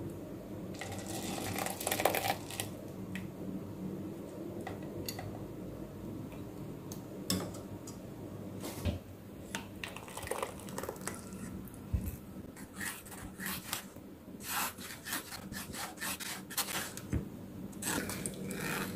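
Scattered light clinks, taps and scraping of a steel pot against a steel mesh strainer and bowl as thick flaxseed gel is poured and strained.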